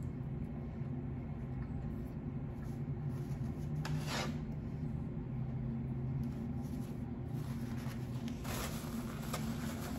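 Brief rustling and scraping sounds of food and containers being handled, about four seconds in and twice near the end, over a steady low hum.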